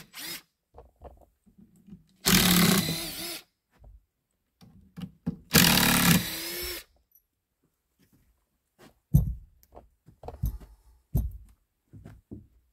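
Electric drill running in two short bursts of about a second each, a few seconds apart, followed by several scattered knocks.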